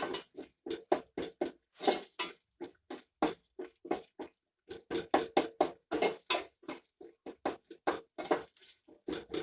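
Soft boiled tomatoes being mashed into masala in a cooking pan with a spoon: rapid repeated strikes, about three a second, with a short pause near the middle.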